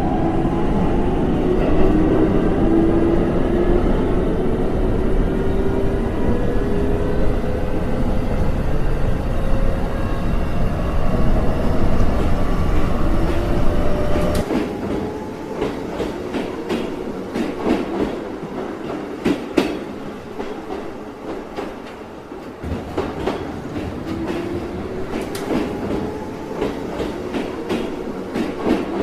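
Sound effect of an electric train running. A whine climbs slowly in pitch over a heavy rumble for the first half. About halfway through the rumble drops away abruptly, leaving the wheels clicking over rail joints, and the rising whine returns near the end.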